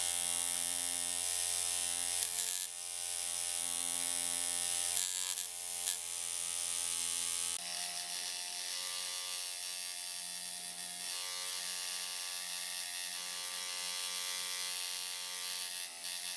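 Coil tattoo machine buzzing steadily while needling a tattoo into skin, with a few brief breaks in the buzz.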